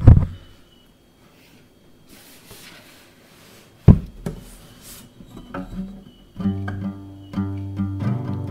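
Two loud knocks, one at the very start and one about four seconds in, then an acoustic guitar begins a strummed intro about five and a half seconds in, settling into steady strumming.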